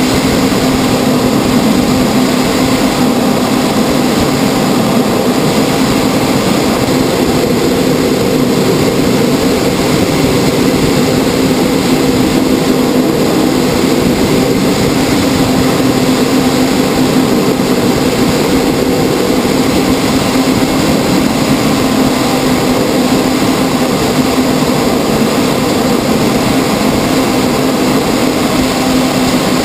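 Cockpit noise of a Canadair CT-114 Tutor jet in formation flight: its single J85 turbojet and the rushing air make a steady, loud drone with a constant low hum and an even hiss.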